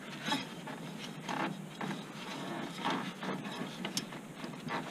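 Hand-fitting noises as an oiled O-ring connector on the PCV hose is worked into a metal intake pipe: a series of short scrapes and knocks of rubber and plastic against metal, with a sharper click about four seconds in.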